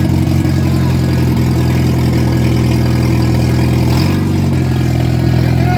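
1989 Jeep Wrangler's engine running at a steady idle, with a slight shift in engine speed about four seconds in.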